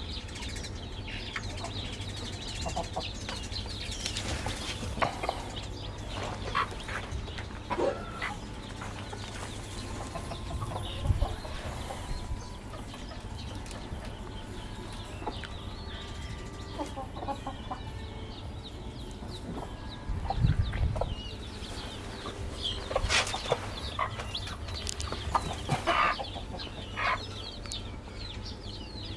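Chickens clucking now and then, in short scattered calls, with several close together near the end.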